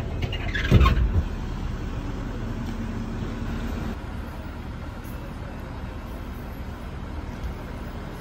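Street traffic ambience: motor vehicles running on a city street, with a brief louder low rumble about a second in. The background drops to a quieter, steadier traffic noise about four seconds in.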